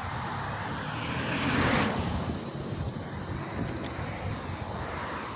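Steady outdoor rumble and hiss with no clear source, swelling briefly about one to two seconds in.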